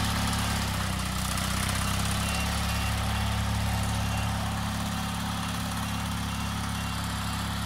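Engine of a Bolens garden tractor with a front loader idling steadily.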